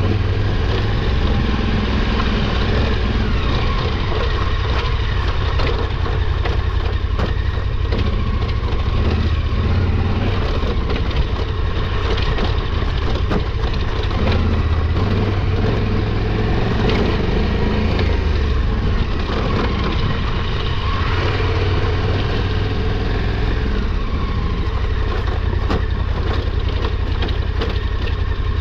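KTM 1290 Super Adventure R's V-twin engine running at low revs, its pitch rising and falling a little with the throttle, with scattered short knocks and rattles.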